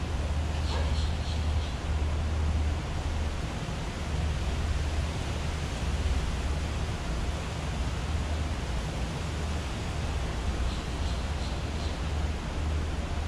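Steady rushing outdoor noise with a strong, uneven low rumble. Faint high chirps come about a second in and again near the end.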